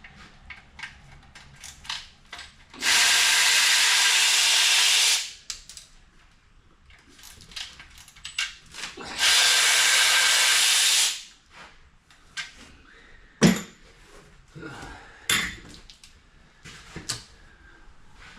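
Handheld power tool running in two steady bursts of about two seconds each while unscrewing bolts from an engine block, followed by a few sharp metallic clanks of parts and tools being handled.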